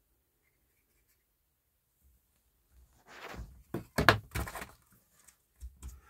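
Small plastic plant pots being set down and pressed into a plastic seed tray: a cluster of knocks and scrapes starting about three seconds in, the loudest just after four seconds, with a few softer thuds near the end.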